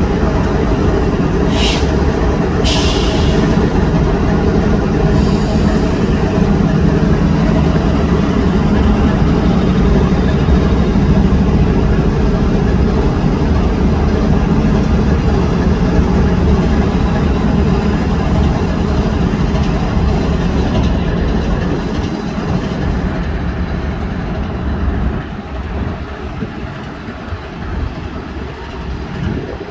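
CSX freight train's diesel locomotives running loudly as the train moves past, their engine sound easing off after about twenty seconds. Two brief sharp high-pitched sounds come about two and three seconds in.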